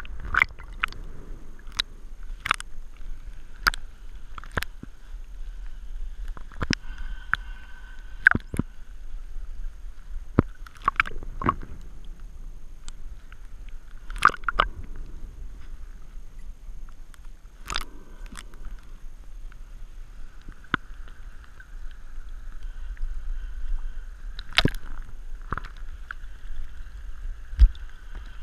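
Water sloshing and gurgling around a head-mounted GoPro in its waterproof housing, covered by a diver's neoprene hood, with frequent sharp clicks and knocks against the housing.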